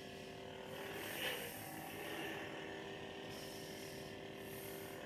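Force FX lightsaber's electronic blade hum playing steadily from the hilt's speaker, with a brief swell about a second in.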